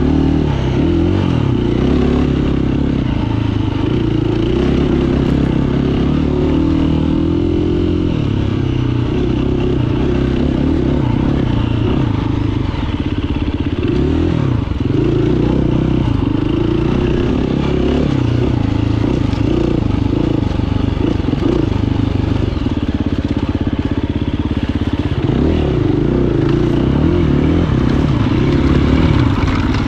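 Dirt bike engine being ridden off-road, its pitch rising and falling all through as the throttle is opened and closed.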